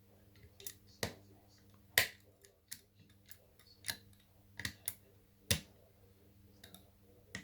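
Union British Standard lever mortice lock being picked: irregular sharp metallic clicks, about a dozen, as the pick lifts the levers under tension and they drop back.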